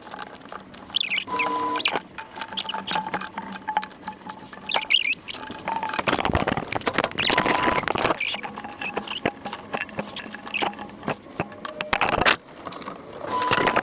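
Close handling noises of repair work on a chainsaw's fuel line: clicks and scrapes of pliers and plastic housing parts, with a few brief squeaks as the rubber fuel line is worked. The louder scraping comes about halfway through and again near the end.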